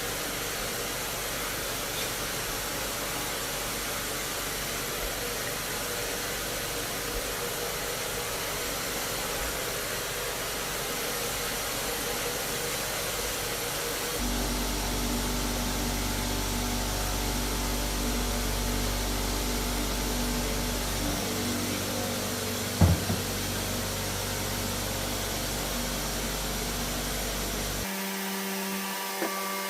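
A motor-driven machine running steadily. About halfway through its sound changes to a steadier hum with a few held tones, and there is one short knock a few seconds later.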